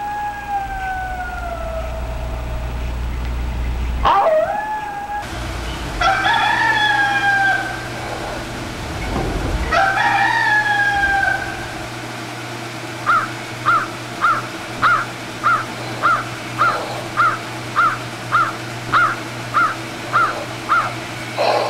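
Several long, animal-like howling calls that slide in pitch, one falling slowly and another jumping sharply upward. These are followed from about halfway through by a steady run of short, high chirps, roughly three every two seconds, over a low steady hum.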